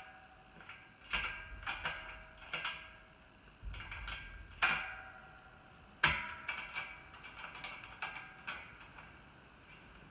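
Stainless-steel sanitary fittings clinking and knocking as a small tri-clamp and seal are fitted by hand, several knocks leaving a brief metallic ring. There are about a dozen knocks, the sharpest about six seconds in, thinning out near the end.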